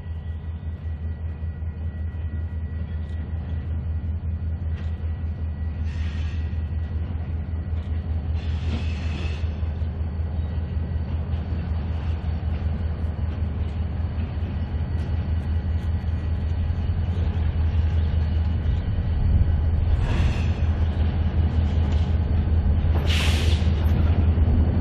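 A pair of EMD GP20 diesel locomotives with turbocharged V16 engines running under load, a deep pulsing rumble that grows steadily louder as they approach. A few brief hissing bursts cut through, the loudest near the end.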